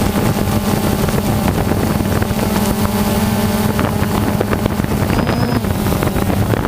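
Small model engine running steadily at a constant pitch, with wind buffeting the microphone.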